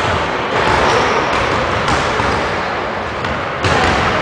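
A basketball bouncing on a hardwood gym floor during free-throw shooting, over the steady noise of the gym, with sudden louder moments about half a second in and near the end.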